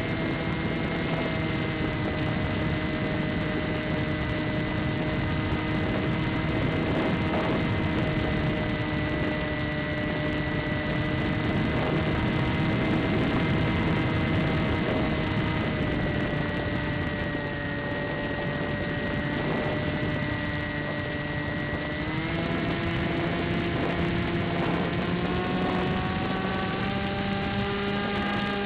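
Electric pusher motor and propeller of an AXN Floater-Jet foam RC plane heard from its onboard camera: a steady whine over wind rush, dipping slightly in pitch about two-thirds through, then rising twice near the end as the motor speeds up.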